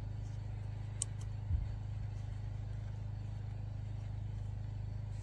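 Steady low hum, with a light click about a second in and a short soft knock about a second and a half in: small handling noises while the new oil filter cartridge and O-ring are fitted into the housing.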